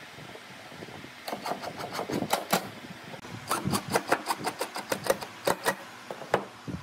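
Cordless impact driver driving screws into pine boards, heard as two runs of rapid sharp clicks, the second one longer, and a last single click near the end.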